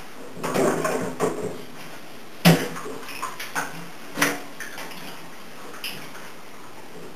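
Dishes and utensils clattering and knocking at a kitchen sink during dishwashing: a run of clinks between about half a second and a second and a half in, then separate knocks, the sharpest about two and a half seconds in and another about four seconds in.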